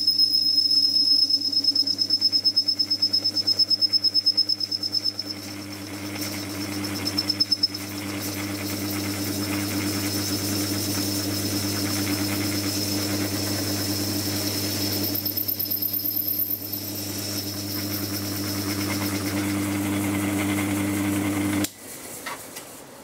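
Metal lathe running while its cutting tool works into the steel casing of a starter solenoid held in the chuck. A steady motor hum sits under a high whine from the cut, which pulses rapidly for the first few seconds and then gives way to a rougher cutting hiss. Near the end the lathe is switched off and the sound drops away abruptly.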